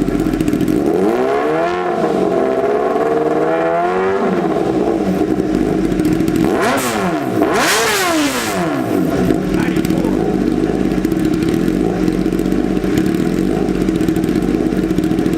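Kawasaki ZX-10R inline-four sport bike engine with an aftermarket exhaust, idling and then revved up and held for a few seconds, followed by two quick, sharp throttle blips and a drop back to idle.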